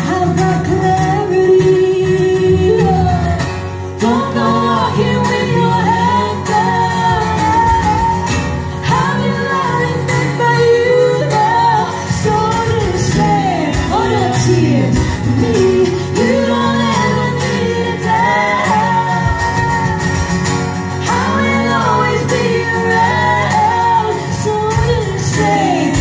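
Live band music: women singing lead and backing vocals over acoustic guitars.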